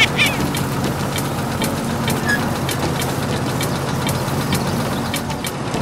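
Toy remote-control crawler bulldozer running as it pushes sand: a steady engine-like hum with regular ticks about two to three times a second.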